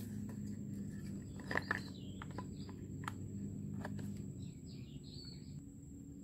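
A few light clicks and knocks as the recoil starter cover of a Shingu SP480D chainsaw is handled and fitted onto the saw's body, the loudest about one and a half seconds in. The engine is not running.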